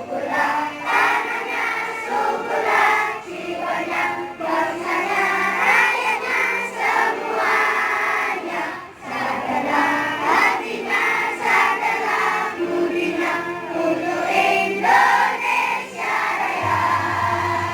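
A song with a group of voices singing together over musical accompaniment.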